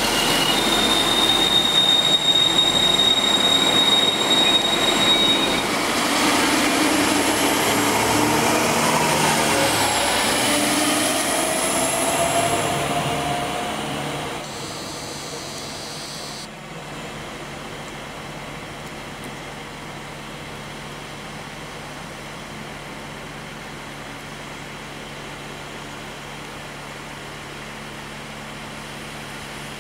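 ÖBB regional train pulling out along the platform, with a steady high squeal for the first few seconds and then a rising drive whine as it picks up speed. The sound fades about halfway through, leaving a quieter steady rumble.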